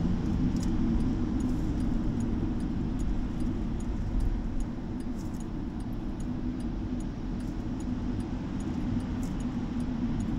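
Steady road and engine noise of a car driving on a highway, heard from inside the cabin: a low, even rumble with a few faint light clicks.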